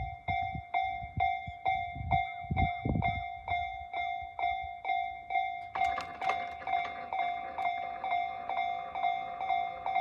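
Japanese level-crossing warning alarm, the electronic 'Tojo-type' bell tone, ringing steadily at about two strikes a second as the crossing activates. About six seconds in, a second overlapping layer of chimes joins in.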